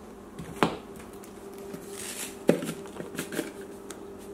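A few light, sharp taps and clicks as a cinnamon shaker and a plastic bowl of oats are handled, over a faint steady hum.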